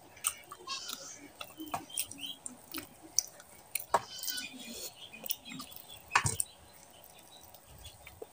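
Close-miked wet chewing and lip-smacking of a mouthful of mutton curry and rice, with sharp wet mouth clicks, loudest about four and six seconds in. Midway, fingers squish rice and curry together on a steel plate.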